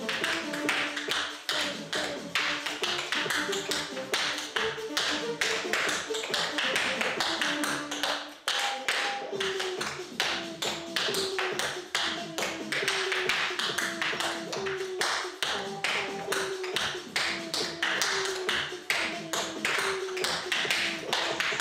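Tap shoes' metal taps striking a portable tap board in a quick, rhythmic run of steps, over background music with a melody.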